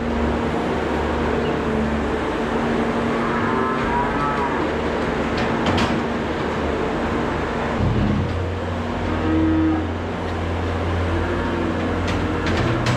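Skid steer engine running steadily, its low drone deepening about eight seconds in, with calves bawling over it a few times.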